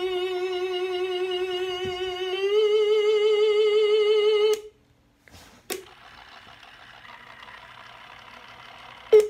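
Motionette animated ghost figure sounding a loud, wavering, theremin-like electronic tone. It holds one note, steps up to a higher note about two and a half seconds in, and cuts off suddenly about halfway through. A click follows, then a quieter steady whir and a sharp click near the end.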